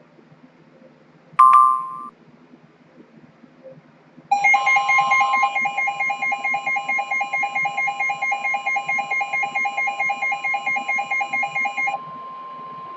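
Weather radio alert tones: a steady single warning tone with a receiver's alarm beeping rapidly over it, about four to five beeps a second. The beeping stops near the end while the steady tone holds. A brief loud beep sounds about a second and a half in.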